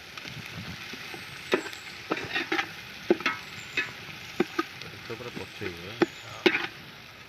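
Chicken and masala sizzling in hot oil in a pan, stirred with a metal spatula that scrapes and knocks against the pan many times.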